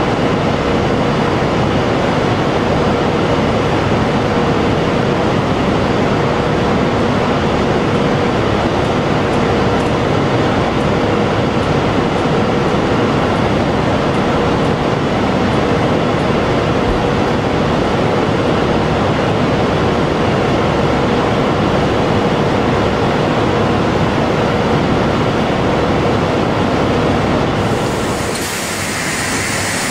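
High Output Auger on a Walinga Ultra-Lite bulk feed trailer running under load, discharging a steady stream of feed from its spout: a loud, even mechanical rush with a constant hum. The sound changes abruptly near the end.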